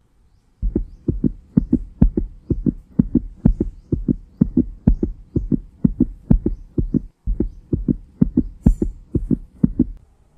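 Heartbeat sound effect: a steady run of double thumps, a softer stroke then a stronger one, about two beats a second, with a short break about two-thirds of the way through.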